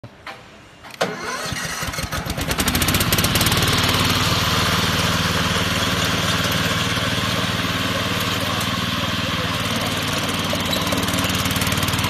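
A 16 HP petrol engine on a remote-control tracked mower, electric-started: a short click, then it catches about a second in, picks up over the next two seconds and settles into steady running.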